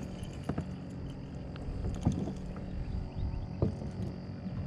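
Handling noise in a fishing kayak: three sharp knocks, roughly a second and a half apart, over a steady low hum.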